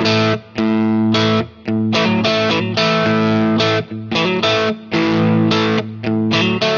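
Background music: distorted electric guitar playing rhythmic chords, with short breaks between them.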